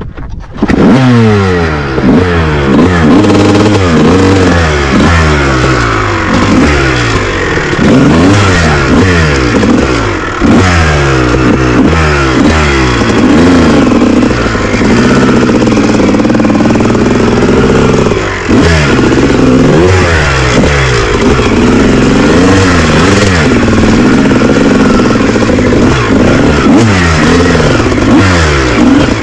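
Dirt bike engine revving up and down over and over while being ridden off-road, getting loud about half a second in.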